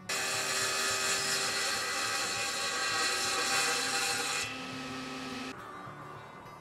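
Table saw ripping a thin strip off the edge of a birch board: a steady, loud cutting noise over the whine of the blade. It is a jointing pass, trimming the edge straight. The cutting noise drops away about four and a half seconds in as the cut ends, then quietens again a second later.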